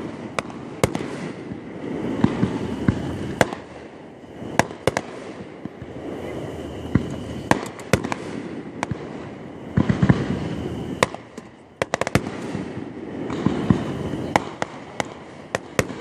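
Aerial fireworks display: shells bursting as a rapid, irregular series of sharp bangs over a continuous rolling rumble.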